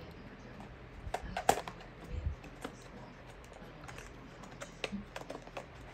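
Handling noises: a series of irregular clicks and taps, the loudest about a second and a half in.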